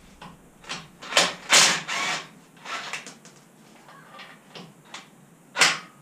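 Metal front-suspension parts of a pickup being handled, in a series of short clanks and scrapes, loudest about one and a half seconds in and again near the end.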